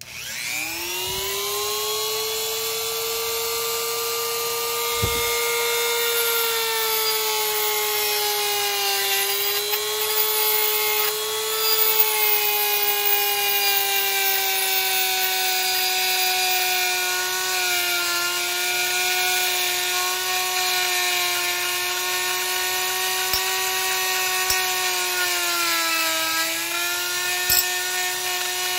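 Dremel rotary tool with a small wire brush attachment spinning up right at the start, then running with a steady high whine whose pitch sags slightly a few times as the brush scrubs corrosion off an aluminum clutch sheave.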